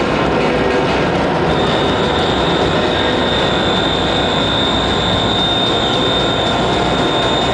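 Electric guitars feeding back through stage amplifiers in a loud, dense wash of noise. A steady high whistling feedback tone comes in about a second and a half in and holds.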